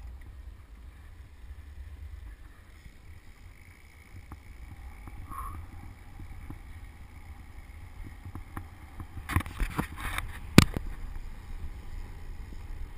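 Wind rumbling on a GoPro's microphone while riding a road bike. Near the end come a cluster of knocks and rubs, the loudest a single sharp knock, as a hand handles the camera.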